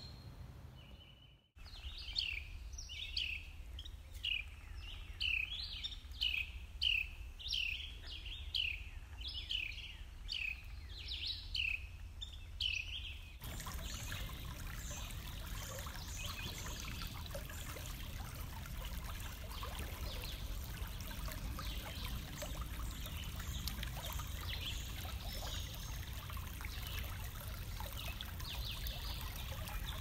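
A songbird repeating a short falling whistled note about one and a half times a second, then, about 13 seconds in, a sudden change to shallow creek water rushing and splashing over a rock ledge, steady for the rest.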